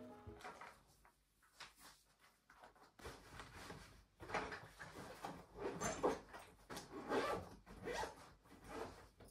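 Backpack being packed and zipped: a run of short, irregular fabric rustles and zipper pulls.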